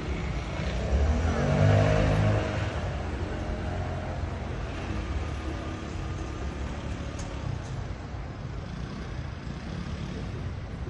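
Road traffic: a vehicle engine passes close and accelerates about a second in, the loudest part, then a steady traffic rumble.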